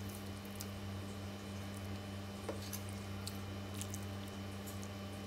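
A spoon moving through soup broth in a ceramic bowl: faint wet squishes and a few light clicks, over a steady low electrical hum.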